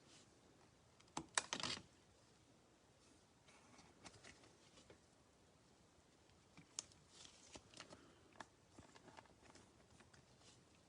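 Faint handling of trading cards being slid into plastic sleeves and toploaders: soft scrapes and light clicks, with a brief louder rustle about a second and a half in.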